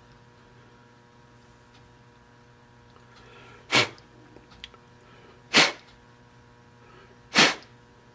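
A person sneezing three times, about two seconds apart, each a short sharp burst.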